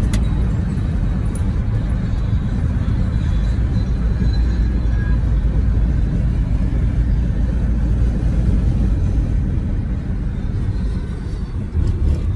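Steady low rumble of road and engine noise inside a car moving at highway speed, with a couple of sharp clicks at the start.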